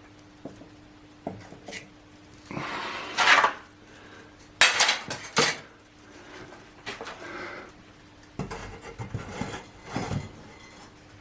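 Hard metal objects clinking and clattering as they are handled, in several irregular bursts, over a faint steady hum.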